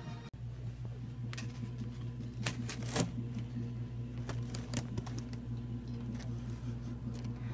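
A steady low hum with a scattering of light clicks and rustles, the loudest click about three seconds in.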